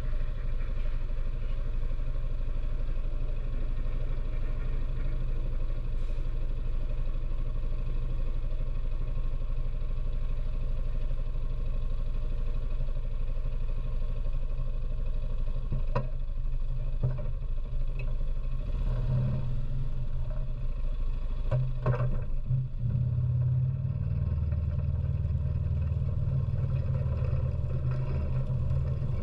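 ATV engine running steadily at idle, its note deepening and strengthening in the last third as the machine pulls forward. A few sharp clicks and knocks come around the middle.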